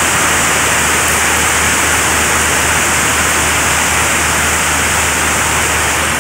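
Heavy rain pouring down onto flooded paving, a loud steady hiss with no let-up.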